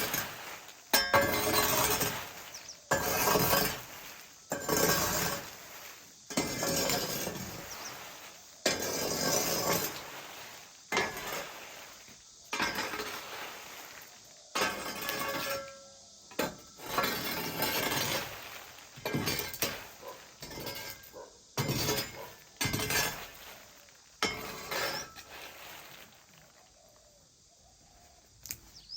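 A series of sharp clinking or knocking impacts, each ringing on briefly, about one every second or two, dying away near the end.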